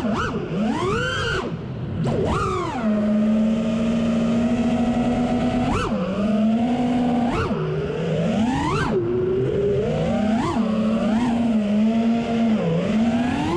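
Brushless motors and propellers of a 5-inch FPV freestyle quadcopter whining as the throttle is worked. The pitch swoops up and falls back again and again, and holds one steady tone for a few seconds about three seconds in.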